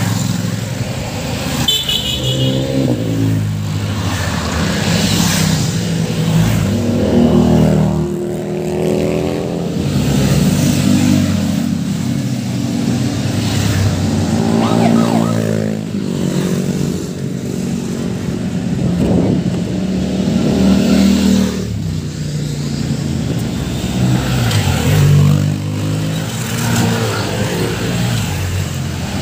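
A stream of motorcycles and other motor vehicles passing close by, their engines revving and rising and falling in pitch one after another.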